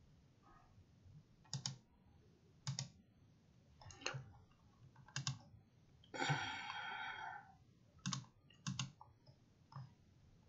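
Faint, scattered clicks from a desk computer's keys and mouse buttons, seven or eight in all, several in quick pairs. About six seconds in, a longer noisy sound lasts just over a second.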